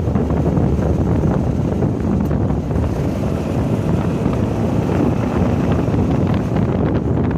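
Volkswagen race car driving at speed: steady engine and road noise with heavy wind buffeting on the microphone.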